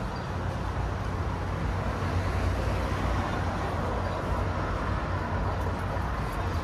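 Steady city street traffic noise: a continuous low rumble of passing vehicles with an even wash of road noise.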